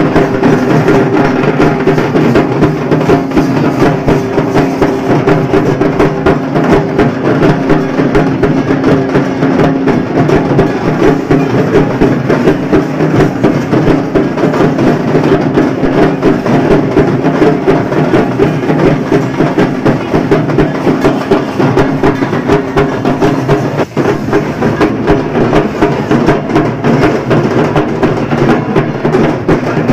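Loud, fast drumming: dense, rapid strokes with no pause.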